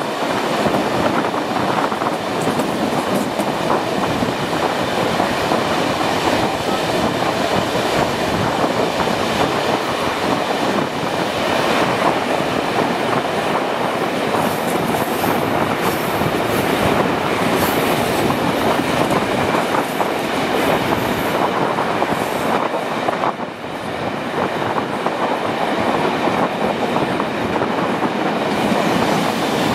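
Steam-hauled passenger train running at speed, heard from an open coach window: a steady, loud rumble of coach wheels on the rails with clickety-clack, dipping briefly about three-quarters of the way through.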